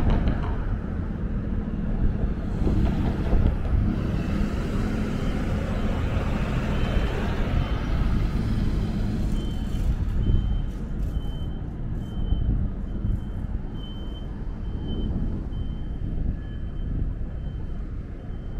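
City traffic rumbling at a street intersection, with a box delivery truck's diesel engine running close by. From about seven seconds in, a short high electronic beep repeats about one and a half times a second.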